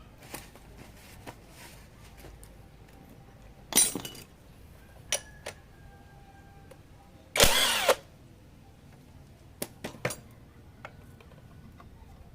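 Metal clanks and knocks as a Honda Supra Fit motorcycle engine and its parts are handled during teardown, with a louder half-second metallic rattle about seven seconds in.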